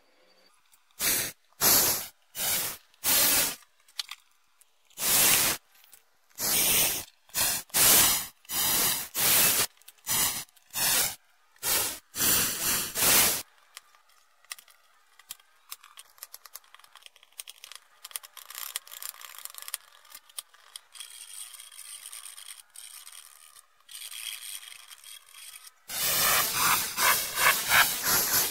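Loud scraping strokes, each under a second, repeated about fifteen times, then a stretch of faint scratching. Near the end comes quick, dense scraping as a small hand drill bores holes in perfboard.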